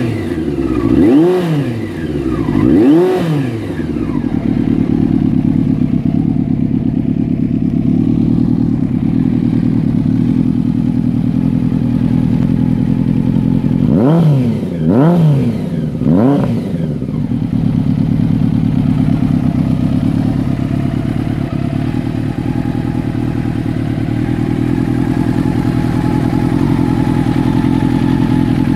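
1990 Honda CBR600F's inline-four engine idling through a Danmoto aftermarket exhaust, blipped twice in the first few seconds and then three quick throttle blips in a row about halfway through, each rev rising and falling back to a steady idle.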